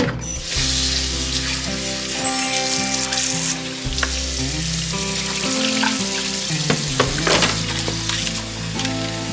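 Food sizzling as it fries in a pan, over background music.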